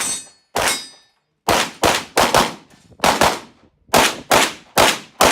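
Rapid string of pistol shots, about ten in a little over five seconds at uneven spacing, some in quick pairs. The first shot has a brief metallic ring after it.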